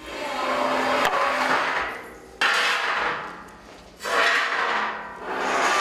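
Long scraping strokes over a hard surface, about four in a row, each lasting a second or two, with a light knock about a second in.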